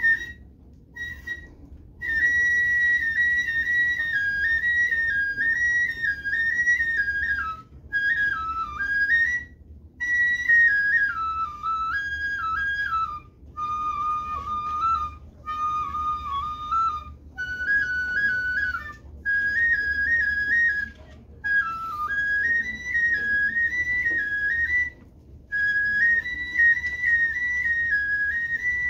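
Japanese bamboo transverse flute (shinobue) playing a solo melody on its own, in phrases of a few seconds separated by short breaks.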